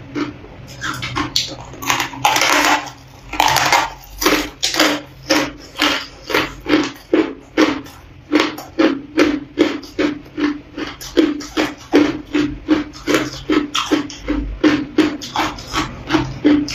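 Ice being bitten off a hand-held chunk and chewed: crisp crunches at about two to three a second, with two longer, louder crunching bites around two and three and a half seconds in.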